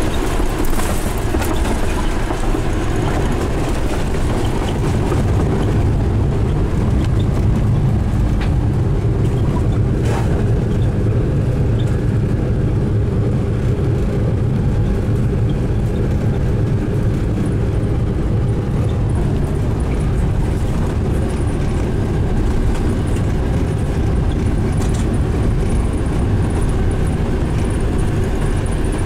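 Cabin noise inside an Airbus A380 during landing and taxi: a steady low rumble of engines and airflow, with a brief knock about ten seconds in.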